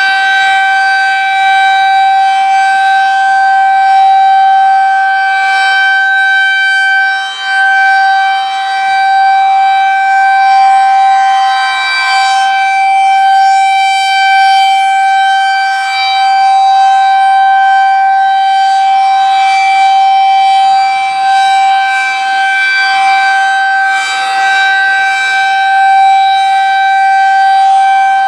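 Federal Signal 2001-SRN electromechanical rotating warning siren sounding the steady alert signal of a routine test: one loud, steady tone, its rotating horn turning at about 2.5 RPM so the loudness wavers slightly.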